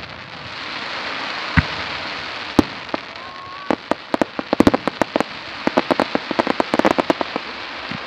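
Fireworks: a steady hiss from ground fountains, two single sharp bangs about one and a half and two and a half seconds in, then from about halfway a fast, dense run of cracks and pops.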